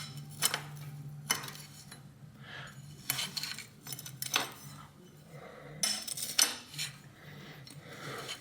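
Irregular metal clicks and clinks of a steel bottom bracket cup wrench being refitted and turned again and again on the bicycle's fixed cup as it is unscrewed from the frame.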